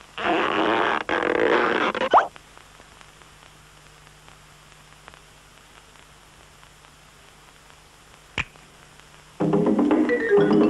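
Cartoon soundtrack music: a loud burst lasting about two seconds, then a long quiet stretch holding only a steady low hum and one sharp click, before the music comes back in a second before the end.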